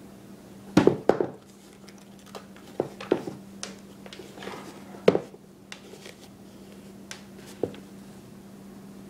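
Handling noises: a string of short knocks and clunks as a canvas shoe is picked up, turned over and set against a wooden table, loudest about a second in and again at about five seconds, over a steady low hum.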